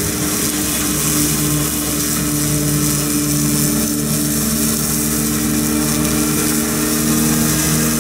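Excavator-mounted hydraulic rotary cutter spinning its disc blade through long grass, with the carrier's engine and hydraulics running: a steady mechanical drone with a hum of several held tones. It cuts off suddenly at the very end.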